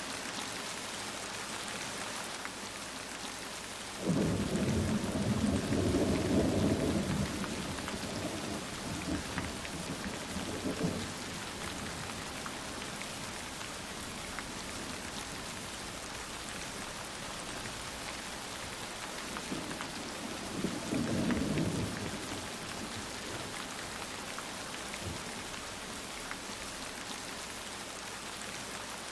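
Heavy downpour with steady rain noise and two rolls of thunder. The first breaks in suddenly about four seconds in and rumbles on for several seconds; a second, shorter roll comes about two-thirds of the way through.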